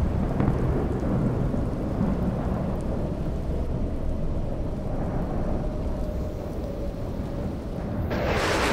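Wind buffeting the microphone: an uneven low rumble with a faint hum in the middle for a few seconds, and a louder, brighter rush of wind noise about eight seconds in.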